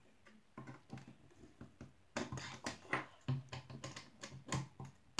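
Irregular clicks and taps of a metal hand tool prying and picking at small plastic toy parts on a tabletop, sparse at first and coming thick and fast from about two seconds in.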